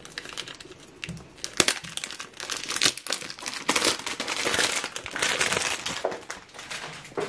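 Clear plastic wrap on a perfume box crinkling and crackling as it is torn and peeled off, in irregular bursts that are thickest around the middle.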